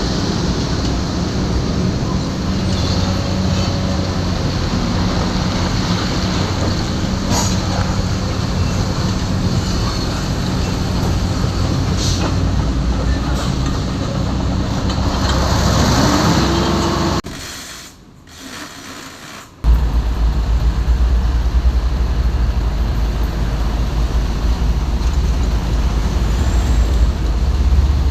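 Heavy diesel engine running steadily, with a brief rise and fall in pitch about fifteen seconds in. The sound then breaks off for about two seconds and returns as a deeper, louder low rumble.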